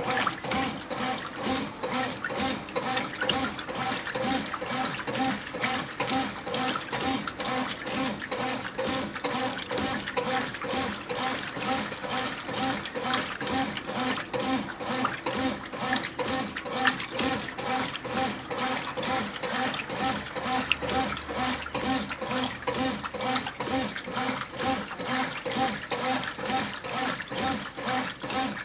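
Brastemp BWQ24A top-loading washing machine agitating a load of clothes in water during the wash stage: rhythmic, even back-and-forth sloshing and churning.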